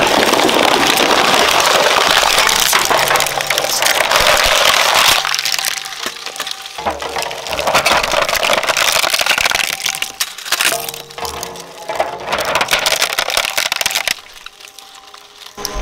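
Twin-shaft shredder crunching and cracking a plastic toy drum set. Dense crunching for about five seconds, then shorter bursts of cracking as the last pieces are pulled through. The shredder's steady hum shows in the quieter gaps, and it goes quiet near the end as the hopper empties.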